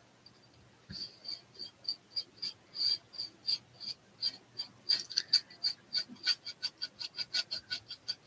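Paintbrush working paint onto a model aircraft: a run of short, rhythmic brush strokes starting about a second in, about three a second at first and quickening to about five a second midway.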